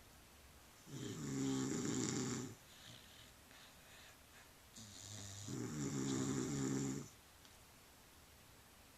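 Snoring in a long, slow rhythm: two loud snores, each lasting about two seconds, with a quiet breath out between them. The second snore swells up gradually before reaching full strength.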